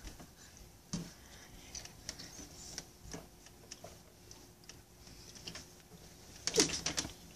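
Scattered small clicks and rustles of people moving and of clothing brushing close to the microphone, with a louder cluster of knocks and rustling about six and a half seconds in.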